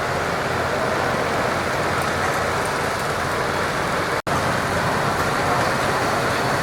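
Farm tractor engine running steadily under load during a deadweight pull. The sound breaks off for an instant about four seconds in.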